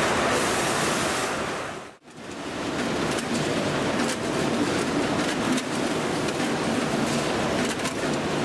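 Packaging machine running in a factory: a steady mechanical noise that cuts out briefly about two seconds in, then goes on with a few light clicks as product drops through the stainless discharge funnel.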